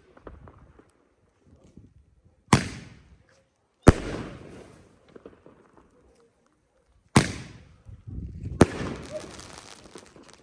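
Four loud fireworks bangs, each a sharp report that fades out in a long echo, with faint crackling between them.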